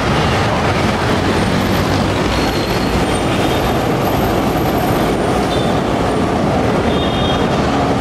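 A light-rail train passing on the elevated track overhead: a steady, loud rumble with faint high wheel squeals, mixed with motorcycle and car traffic in the street below.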